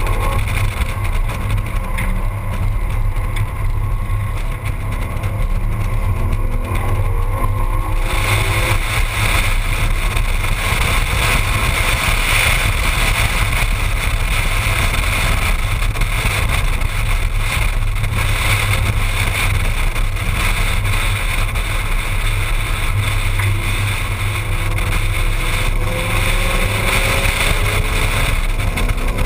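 Ford Mustang's engine running at speed on a track, heard through a camera mounted outside the driver's door and mixed with heavy wind and road rush. The wind and road noise grows louder about eight seconds in, and the engine note climbs near the end as the car accelerates.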